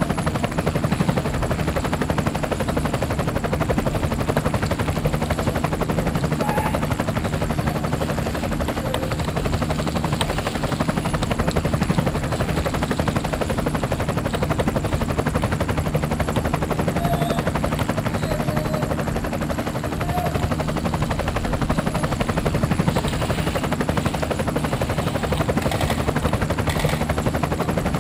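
A steady mechanical drone with a fast, even pulsing and a low hum, holding at the same level throughout.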